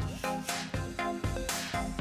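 Background electronic music with a steady beat, about two beats a second, and sustained chords.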